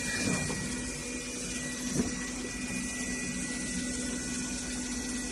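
Steady hum of a small running motor with a faint constant high whine, and one light click about two seconds in.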